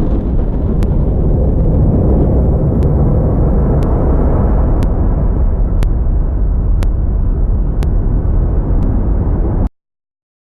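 Loud, steady deep rumble, a soundtrack effect like a rocket or engine drone, with a faint tick about once a second; it cuts off abruptly near the end into silence.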